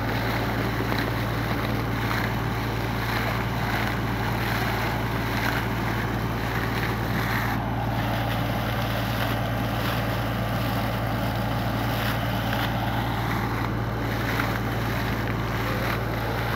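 A drilling rig's engine running with a steady low drone, over the hiss and splash of water gushing up out of a newly drilled borehole.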